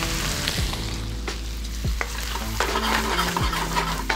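Diced Chinese barbecue pork sizzling with onion in garlic oil in a wok, stirred with a wooden spoon, with scattered knocks and scrapes of the spoon against the wok.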